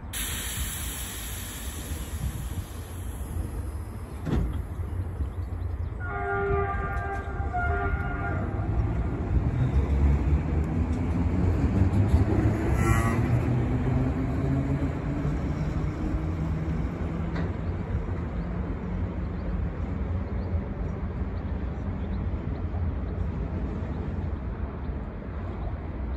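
Budapest H7 HÉV suburban electric train sounding a short horn signal about six seconds in, then pulling away from the station, its motor whine rising in pitch as it speeds up. A high hiss is heard in the first few seconds.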